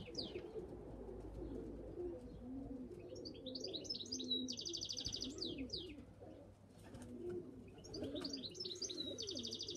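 Pigeons cooing in low, overlapping calls. Over them a small songbird twice sings a phrase of quick high notes ending in a fast rattling trill, about five seconds apart.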